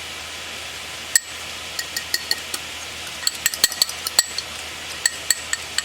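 A spoon clinking quickly and unevenly against a small bowl, stirring cornstarch into beef broth, over the steady sizzle of vegetables frying in a cast iron pan.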